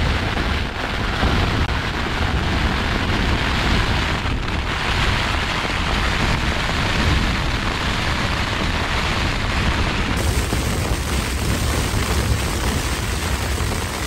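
Storm-force wind and heavy rain battering a Hilleberg Soulo tent, heard from inside: the tent fabric shaking under a continuous loud rushing noise with a heavy low rumble.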